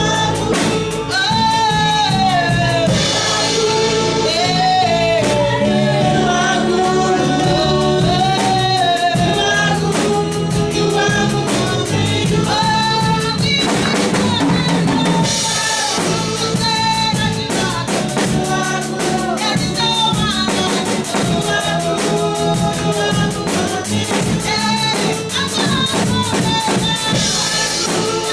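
Gospel worship song: singers over a band, with a drum kit keeping a steady beat.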